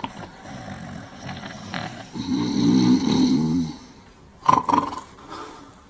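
Two men snoring in their sleep, loud enough to keep others awake. The loudest is one long snore starting about two seconds in, followed by shorter, sharper sounds about four and a half seconds in.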